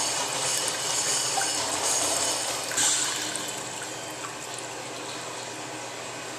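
Urinal flushing: water rushing into the bowl, easing off to a lower, steady run of water about three and a half seconds in.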